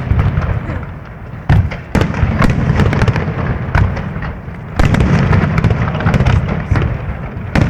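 Fireworks display: a run of loud shell bursts and bangs, several close together with sharp onsets about one and a half, two and nearly five seconds in, over continuous crackling and rumbling, heard through a cellphone microphone.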